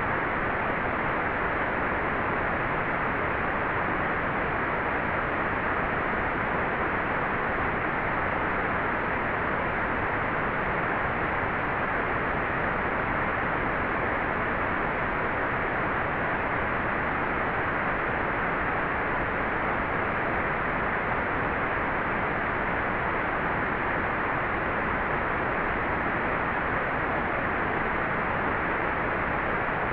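Hair dryer running steadily: an even, unbroken rush of blown air with no change in pitch or loudness.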